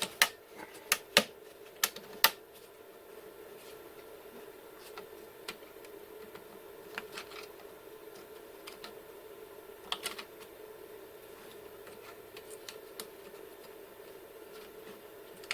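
Sharp plastic clicks as the snap-on link covers of a cable drag chain are popped open and pressed shut: about five loud clicks in the first couple of seconds, then scattered fainter clicks and light rattles.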